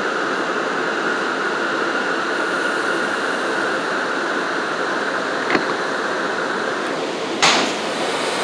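Steady hum and hiss inside an R179 subway car as the train comes to a stop at the station, with a light click about five and a half seconds in and a louder, sharp clatter near the end as the doors open.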